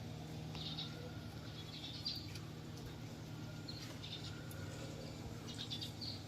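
Small birds chirping in short, high clusters every second or two, over a steady low hum.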